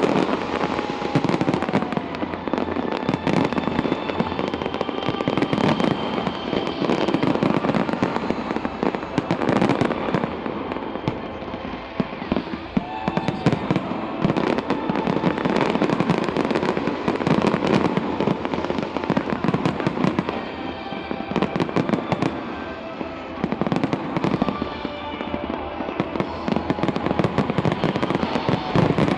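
Large aerial fireworks display going off continuously: a dense run of booming and crackling bursts, with music playing underneath.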